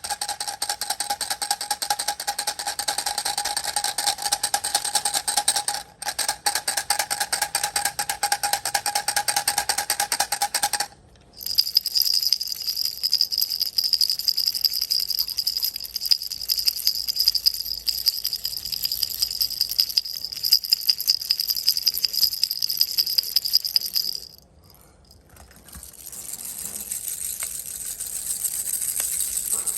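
Baby toy rattles shaken fast and without a break, a dense rattle with a bell-like ringing. The rattle changes about 11 seconds in to one with a higher, thinner ring, and again after a short pause near the end.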